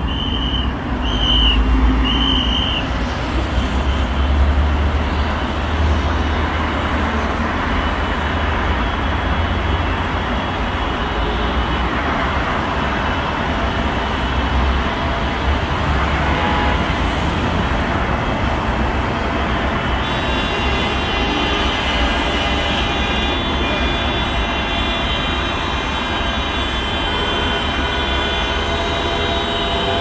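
Busy highway traffic with a deep engine rumble, three short high beeps in the first few seconds. About twenty seconds in, many steady horn and siren tones at several pitches start and hold: drivers sounding their horns and sirens wailing for the commemorative minute of silence.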